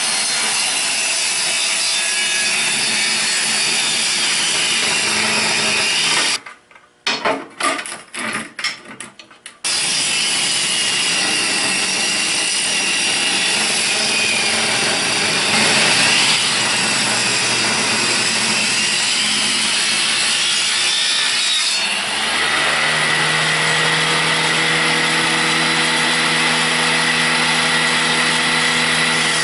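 Old benchtop table saw ripping a weathered driftwood log, the blade cutting with a loud, steady sawing noise. About six seconds in the cut breaks off for a few seconds of scattered knocks, then resumes; from about 22 seconds on, a steady motor hum and whine comes through under the cutting.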